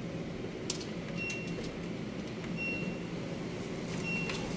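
LG commercial washer's control panel beeping three times, one short high electronic beep for each press of the Warm button, about a second and a half apart, over a steady low hum. The presses key in the tub-clean cycle.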